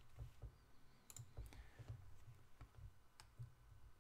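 Near silence: room tone with a handful of faint, sharp clicks scattered through it, as at a computer.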